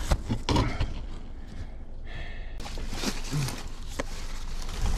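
Rustling, scraping and a few knocks as a person crawls and shifts about on dirt and loose straw in a crawlspace, handling insulation and the camera, with a short low grunt a little past halfway.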